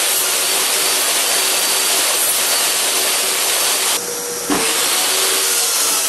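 Table saw running steadily with a loud, even whir. The whir dips for about half a second around four seconds in, then runs on at the same level.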